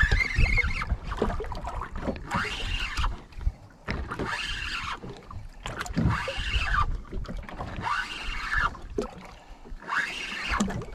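Spinning reel cranked in spurts about every two seconds while jigging, each spurt a short whirr of the reel turning as the rod is jerked. A steady low rumble of wind on the microphone lies underneath.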